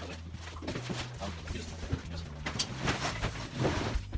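Cardboard rustling, scraping and knocking as a large cardboard box and loose flattened cardboard are picked up and shifted. Under it runs background music with a low bass line that changes pitch every second or so.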